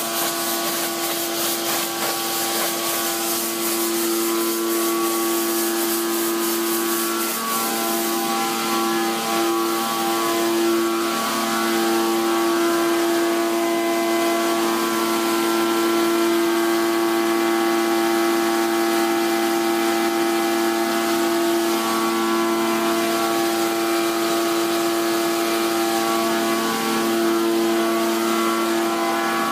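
Pneumatic conveyor running steadily with a droning hum and whine, its suction hose drawing plastic resin pellets through with a fast rattling hiss that is strongest for about the first eight seconds.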